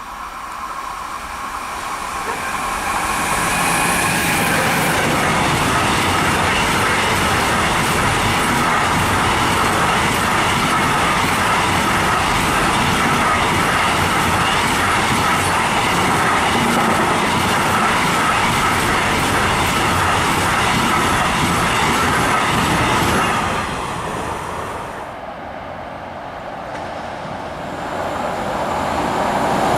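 A train passing close by, its wheels running and clattering on the rails with a high, held ringing or squealing, loud and steady for about twenty seconds before it fades. Near the end the rail noise starts building again as the next train approaches.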